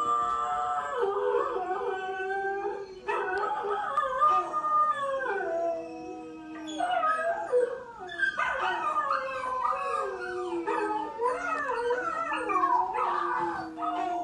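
A chorus of several howls overlapping, sliding up and down in pitch, played as recorded howling from a TV to set dogs howling. It comes in waves, with short lulls about three and eight seconds in.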